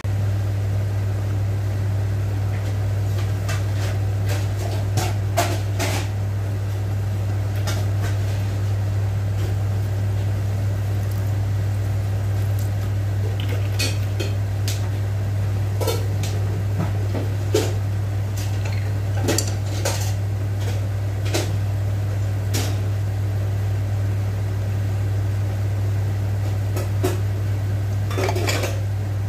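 A stainless steel pot of water spinach boiling on the stove: a steady low hum with scattered clicks, pops and metallic clinks from the pot.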